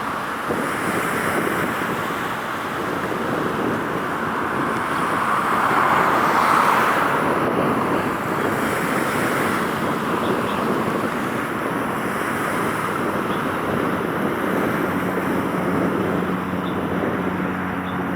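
Steady rushing outdoor noise of wind and distant road traffic, swelling about six seconds in, with a low steady engine hum joining near the end.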